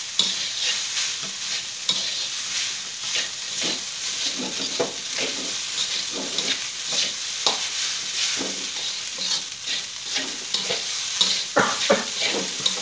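Fried rice sizzling in a metal wok as a spatula stirs and scrapes it, with irregular clacks of the spatula against the pan and a few sharper ones near the end.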